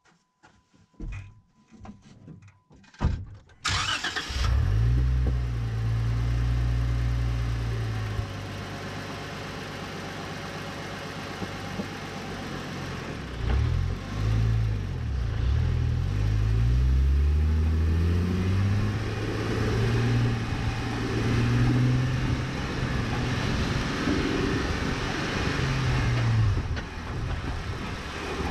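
A few sharp clicks and knocks, then a Jeep's engine starts about four seconds in and keeps running, its pitch rising and falling several times as the Jeep is driven. Heard from beneath the front wheel well, next to the sway bar and coil spring.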